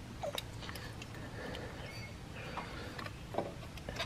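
Light clicks and taps of small metal fasteners and engine parts being handled and threaded by hand, scattered irregularly over a low steady hum.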